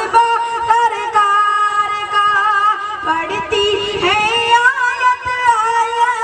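A boy's high voice singing a naat unaccompanied into a microphone, holding long melodic notes and sliding between them with ornamented wavers.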